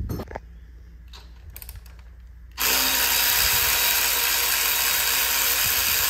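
A clunk of a part being set down, a few light clicks, then a loud steady hiss of pressurised gas spraying, starting about two and a half seconds in and held for about four seconds.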